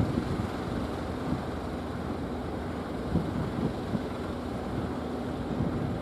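Engine running steadily: a faint even hum under a rumbling noise.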